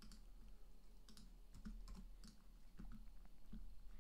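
Faint computer keyboard typing: scattered, irregular keystrokes, a few a second.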